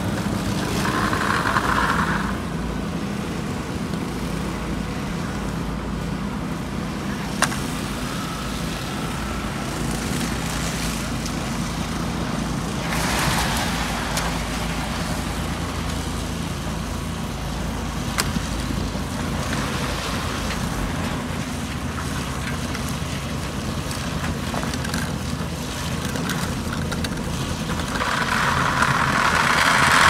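Diesel engines of road-paving machines, an asphalt paver and a tandem roller, running with a steady low drone. A few sharp clicks and short bursts of noise come over it.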